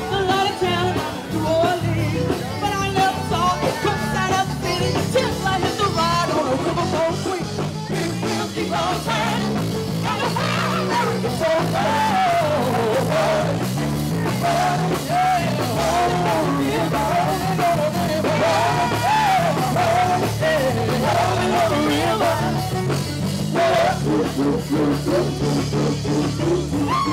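A live band playing rock music, with a singer.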